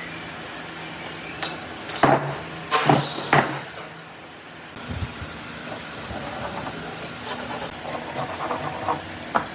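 Workshop handling noise: three loud knocks in quick succession a couple of seconds in, then lighter clattering and rubbing, over a steady low machine hum that fades out midway.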